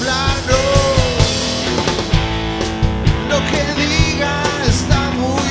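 Live rock band playing: a drum kit keeping a steady beat under electric bass and electric guitar, with a male voice singing the melody.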